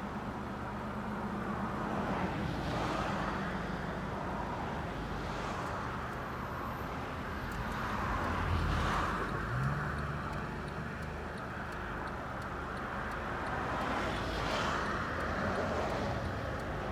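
Steady low vehicle engine hum, with a rushing noise that swells and fades several times.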